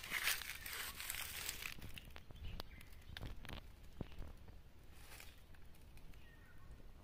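Footsteps and rustling in dry leaf litter, strongest for the first two seconds, then fading to faint scattered crackles and rustles of leaves.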